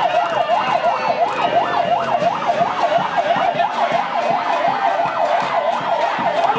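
Electronic vehicle siren on yelp, its pitch sweeping rapidly up and down about four times a second, over the noise of a crowd.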